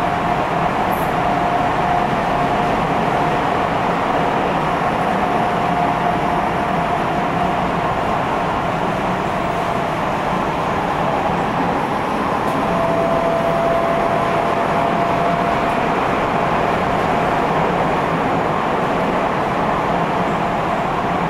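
Tokyo Metro 10000 series subway train running at speed in the tunnel, heard from inside the car: a steady rumble and rail noise, with a faint steady tone that fades out and comes back about halfway through.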